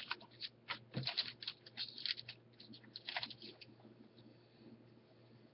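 Trading cards and plastic card sleeves being handled: a quick run of small rustles, crinkles and light taps for about three and a half seconds, then only faint handling.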